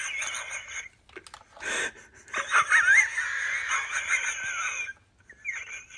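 A person laughing almost silently in high-pitched, squeaky wheezes. The laughter comes in fits: a noisy in-breath about two seconds in, then a long wheezing fit, and a short one near the end.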